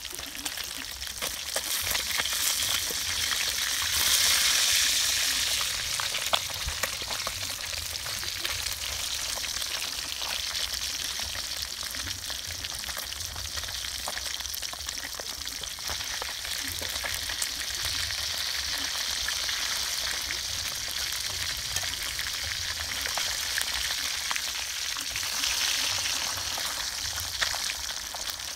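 Fish frying in hot oil: a steady sizzle with scattered crackles, louder about four seconds in and again near the end.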